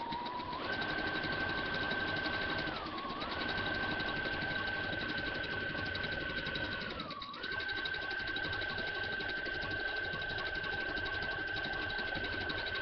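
Electronic sewing machine running fast, stitching a decorative flower pattern: a steady high motor whine over rapid needle ticking. It slows briefly twice, the whine dipping in pitch and coming back up.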